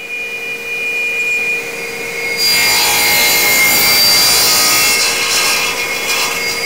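A woodworking power tool running with a steady whine, then cutting into wood from about two and a half seconds in with a loud rushing noise that eases off near the end.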